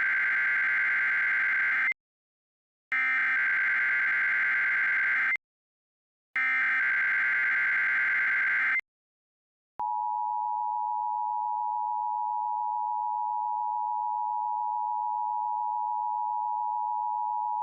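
Weather radio emergency alert test signal: three identical bursts of SAME digital header data, each a harsh two-pitched warble about two and a half seconds long with a second's gap between them. About ten seconds in, a steady warning alarm tone starts and holds.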